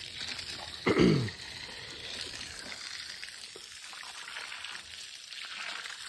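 Water running and splashing over a wet concrete floor as it is washed down, a steady hiss. About a second in, a short, loud grunt-like vocal sound drops steeply in pitch.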